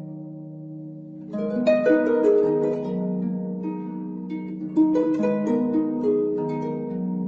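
Background music of plucked string notes over low held tones, with new phrases coming in about a second and a half in and again near five seconds.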